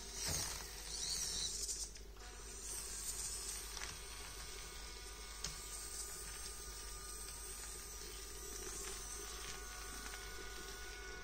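Faint whine of a micro RC crawler's N20 105 rpm gear motor as the 1/32 truck crawls over gravel and rocks, with a light hiss and scrabble from the tyres on loose grit. It is louder for the first couple of seconds.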